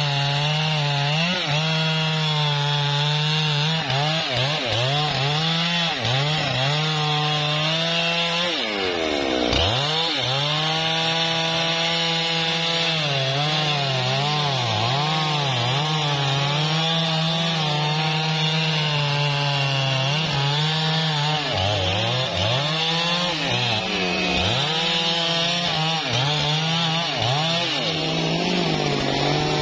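Husqvarna 3120 XP two-stroke chainsaw cutting through a thick trembesi log under load, its engine note wavering as the chain bites. About nine seconds in the note dips sharply and picks back up, and near the end the saw comes out of the cut.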